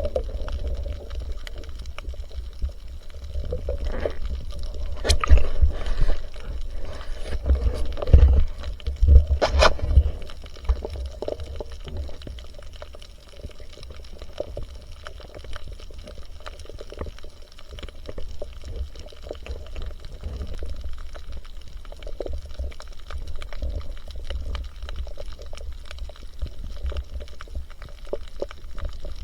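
Water gurgling and sloshing over a constant low rumble, with a cluster of louder sloshes and sharp clicks between about four and ten seconds in.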